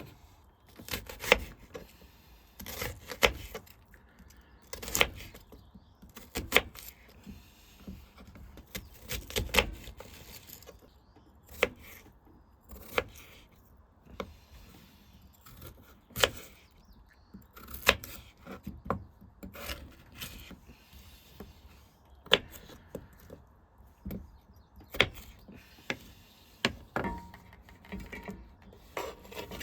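Firewood being handled: a series of sharp wooden knocks and clacks, roughly one every one to two seconds, with quieter rubbing and shuffling between them.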